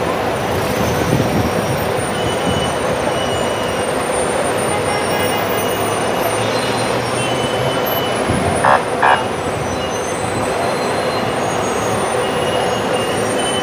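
Steady din of heavy road traffic backed up in a jam, with buses among it. Two quick horn toots about nine seconds in.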